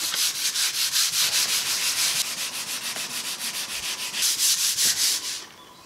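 Hand sanding a sealed wooden lid with 150-grit sandpaper, rapid back-and-forth strokes, about five a second, cutting back the dried grain-filler haze. The strokes get louder after about four seconds and stop abruptly shortly before the end.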